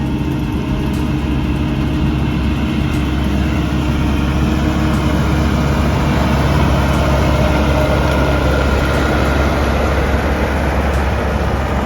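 Combine harvester's engine running steadily with a deep hum, growing a little louder midway.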